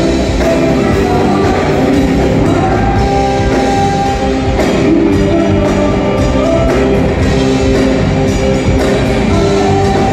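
Live rock band playing loud and steady through a PA, with drum kit, guitar and singing.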